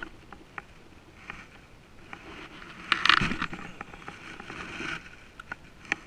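A spincast fishing reel being handled and cranked, giving scattered light clicks. About three seconds in comes a louder burst of rustling noise that fades over the next couple of seconds.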